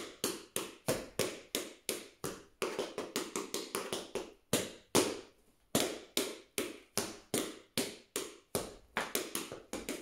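Tap shoes striking a hard floor as a tap dancer dances a step combination: a quick run of sharp, crisp metal taps in an uneven rhythm, about four a second, broken by a few short pauses.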